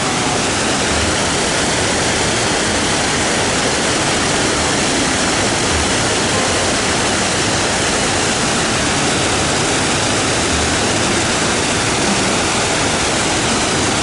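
Kirihara Falls, a wide waterfall about 12 m high, crashing steadily: a loud, unbroken rush of falling water.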